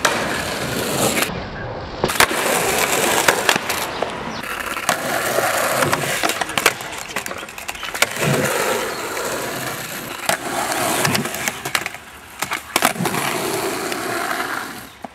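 Skateboard wheels rolling on concrete and asphalt, with sharp clacks of the board popping and landing and trucks grinding along the metal edge of a box. The sound breaks off briefly a couple of times as the clips change.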